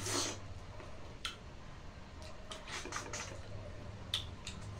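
Close-up eating sounds from people eating rice and curry with their hands: wet chewing and lip smacks as scattered short clicks, with a hissing breath drawn in at the start from the heat of the spicy pork curry. A low steady hum runs underneath.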